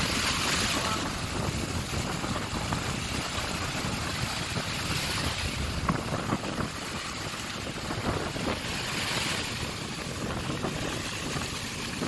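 Sea surf breaking and washing up a sandy beach, the hiss of each breaking wave swelling about every four to five seconds, over a steady low rumble of wind buffeting the microphone.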